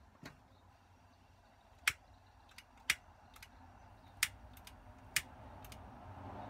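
A hand-held gas lighter clicking as it is sparked at a gas hob burner: a handful of sharp clicks about a second apart. A faint hiss of gas builds near the end as gas reaches the burner.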